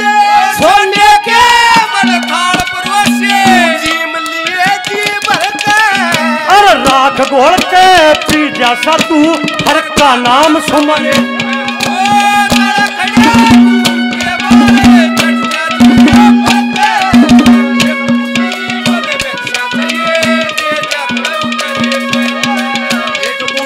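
Live Haryanvi ragni folk music: hand drums beat a fast, dense rhythm under a wavering, ornamented melody line. A steady held note sounds beneath them and breaks off now and then.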